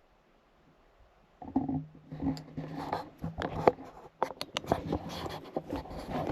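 Knocks, clicks and scrapes of things being handled close to the microphone, starting about a second and a half in after near silence.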